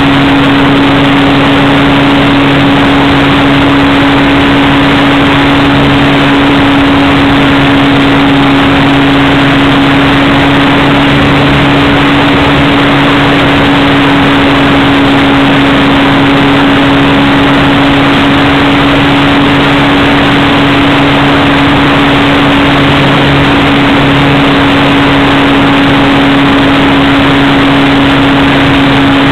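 1400kv brushless outrunner motor and propeller of an RC plane running at steady throttle, heard loud and close through the plane's own on-board camera mic. It holds one steady pitch over a constant rushing noise from the airflow and vibration.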